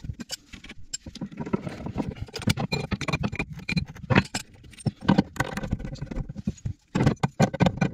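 Irregular metallic clinks and knocks of a spanner on brass fittings while braided flexible hoses are nipped up onto the pipework.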